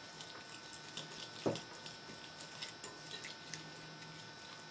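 A small whisk stirring an oil-and-vinegar dressing in a glass mixing bowl: faint scattered clicks and light taps, with one soft knock about one and a half seconds in.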